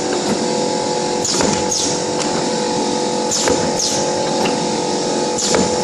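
YX400 wire-cut cookie depositing machine running: a steady motor hum with a repeating cycle about every two seconds, each cycle a pair of quick falling swishes as the head deposits and cuts the dough.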